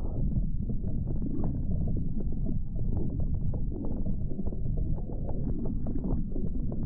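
Strong wind buffeting the microphone on a small boat running through a rough sea, with water rushing and spray breaking against the hull. A continuous low rumble with frequent short knocks.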